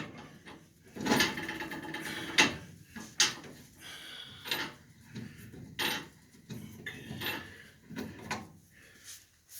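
Irregular knocks, clunks and scraping, like parts or tools being handled and moved, with a longer scrape about a second in and several sharp knocks after it.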